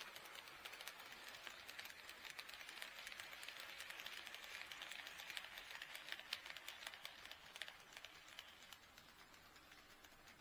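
HO-scale model train running past on KATO Unitrack, its wheels making a rapid patter of fine clicks over the rail joints. The clicking grows louder toward the middle and fades away about eight seconds in.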